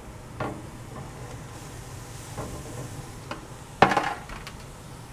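A few light knocks and one sharper clack nearly four seconds in, from a beef tenderloin and cooking utensils being handled on a grill as searing starts.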